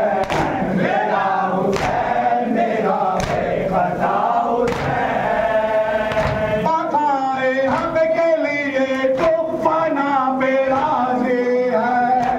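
A crowd of men chanting a Shia noha lament in unison, with sharp chest-beating (matam) slaps about every second and a half. From about six seconds in, the singing turns into one clear, wavering melodic line.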